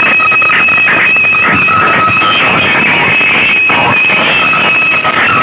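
Very loud, distorted music blasting from a DJ sound-system speaker rig, with a steady high-pitched tone held over a dense, unbroken wash of sound.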